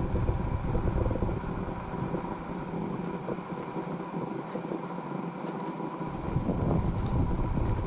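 Wind buffeting an action-camera microphone: a steady low rumble with hiss. The deepest part of the rumble drops away for about three seconds in the middle, then returns.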